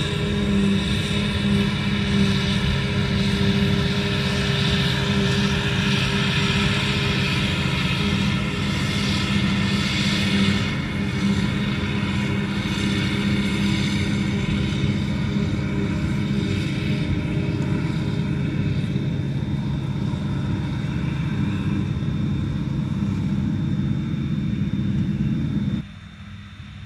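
Steady mechanical drone of motors with a constant low hum, running evenly and cutting off abruptly about a second before the end.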